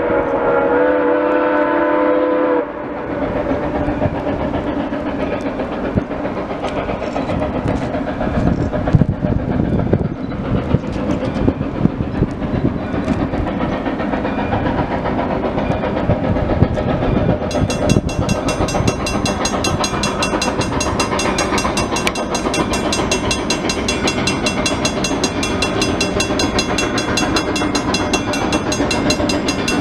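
Soo Line 1003, a 2-8-2 Mikado steam locomotive, sounds a steam whistle of several notes that cuts off about two and a half seconds in. The locomotive then keeps working under steam as it approaches, with a continuous rush of exhaust.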